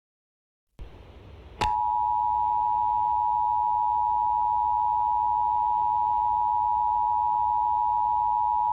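Emergency Alert System attention signal: the two-tone alert (853 and 960 Hz sounded together), held steady and loud, which announces an incoming EAS message, here the required monthly test. It cuts in with a click about a second and a half in, over a low hum, after a near-silent start.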